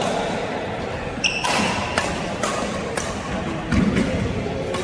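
Badminton rally in a large hall: sharp racket-on-shuttlecock hits about every half second, a short high squeak about a second in, and low thuds of footwork a little later.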